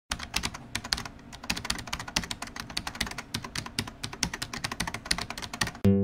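Rapid, irregular clicking, several clicks a second, uneven in loudness. Just before the end it gives way to music.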